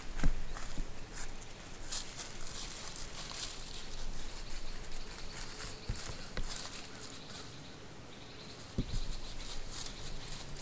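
Scattered rustling and crackling outdoors, with a sharp knock just after the start and another knock near the end, over a faint steady hum in the second half.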